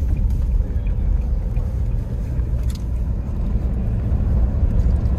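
Steady low rumble of a 4x4 vehicle on the move, with a few faint knocks.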